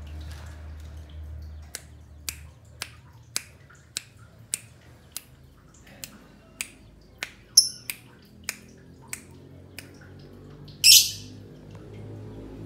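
A run of sharp clicks, about two a second, followed about eleven seconds in by one loud, harsh, short call from a pet green lovebird.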